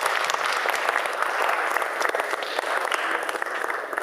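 Audience applauding, a dense patter of many hands clapping that fades slightly near the end.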